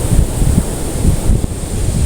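Ocean waves washing continuously, with wind buffeting the microphone in an irregular low rumble.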